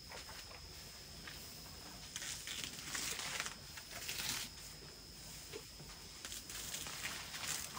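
African bush elephant pulling up grass with its trunk and chewing it: a few irregular rustling, ripping sounds.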